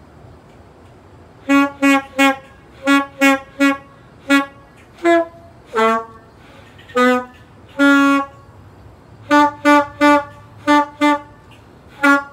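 A horn-like honker sounding about seventeen short toots in an uneven rhythm, starting about a second and a half in. Most toots are on one pitch, a few are lower and slide down, and one near the middle is held longer; a low steady hum lies beneath.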